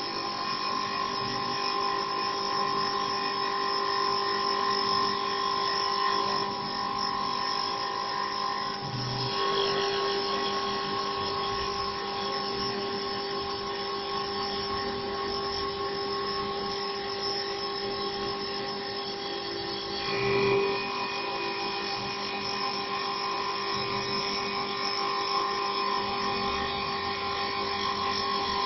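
Mini CNC wood-turning lathe running, a steady whine of several tones from its motors. The whine shifts slightly in pitch a couple of times, with a brief louder moment about two-thirds of the way through.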